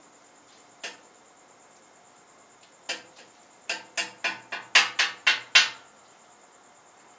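Metal spatula tapping and scraping on a flat-top griddle. There is a single tap about a second in and another near three seconds, then a quick run of about eight sharp taps over two seconds, the loudest near the end of the run.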